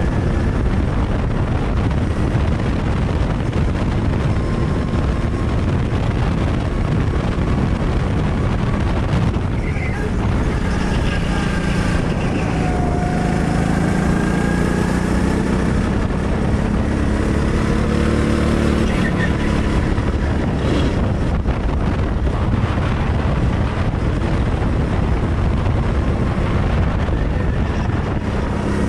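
Go-kart engine running at speed, recorded on board over a dense rushing noise. The engine note bends up and down around the middle.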